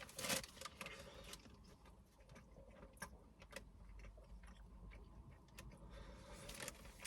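Quiet chewing of a pie with a crispy crust: faint, irregular little clicks and mouth sounds.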